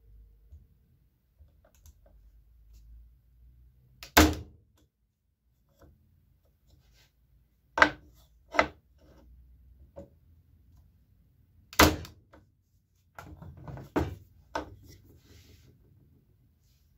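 KOBB KBZ90 electric staple gun firing staples into a strip of wood: a few sharp shots several seconds apart, with softer knocks and rustling as the wood and tool are handled between them. The staples go in neatly.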